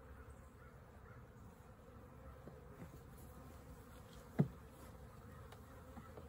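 Honeybees buzzing around an opened hive, a faint steady hum. One sharp knock sounds about four and a half seconds in.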